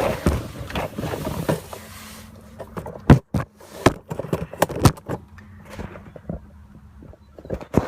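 Rubbing and rustling, then a string of sharp knocks and clunks with short gaps between them, from handling the camera and moving about under the vehicle.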